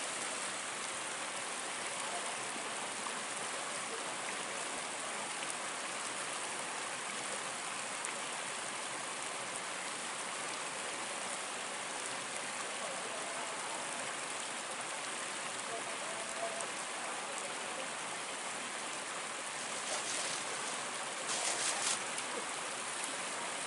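Steady rushing of river water, with a few brief louder rustles near the end.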